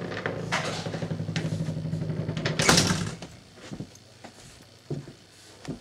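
A steady mechanical hum with a fast flutter that cuts off about three seconds in, just after a loud scrape; then faint clicks and knocks.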